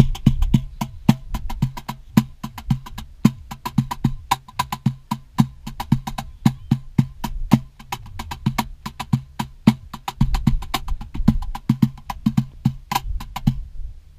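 Cajon played by hand in a fast solo, deep bass strikes mixed with sharp slaps, then it stops near the end.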